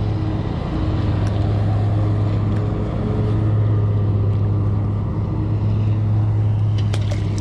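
Steady low engine hum with evenly spaced overtones, unchanging throughout, with a few faint clicks.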